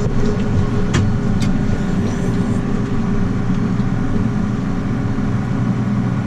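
Large farm machine's diesel engine running steadily at working speed, a constant hum, with two light clicks about a second in.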